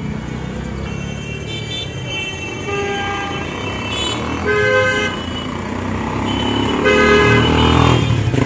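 Vehicle horns tooting several times over the steady rumble of road traffic. The loudest toots come about halfway through and again near the end.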